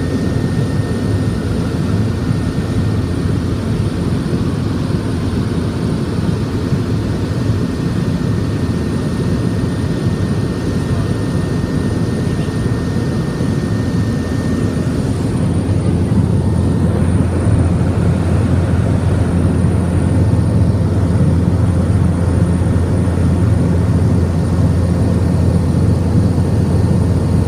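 Steady drone of a seaplane's engine and propeller heard from inside the cabin in level flight, growing slightly louder a little over halfway through.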